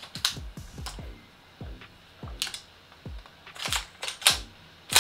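EMG/King Arms Daniel Defense DDM4A1 gas blowback airsoft rifle being worked with a freshly gassed magazine: sharp metallic clacks of the bolt and charging handle. Three come in quick succession near the end, as the action cycles up to the bolt locking back. Background music plays underneath.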